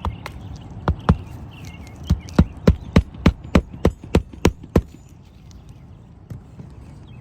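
Hammer driving roofing nails into an asphalt shingle's nail strip to fasten a replacement shingle. It strikes twice, then gives a run of about ten quick blows at roughly three a second before stopping.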